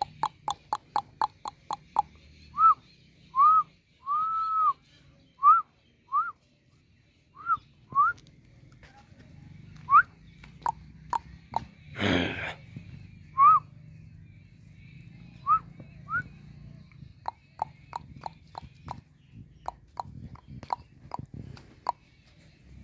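Short whistle-like chirps, each a brief rising-then-falling note, come about one to two a second with pauses between them. Sharp clicks come in a quick run at the start and again later. About twelve seconds in there is a short noisy burst.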